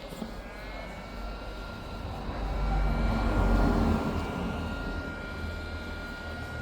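Heat gun running, blowing hot air at 400 degrees onto the edges of a cracked tablet screen: a steady rush of air with a thin high whine from its fan, louder for about a second and a half in the middle.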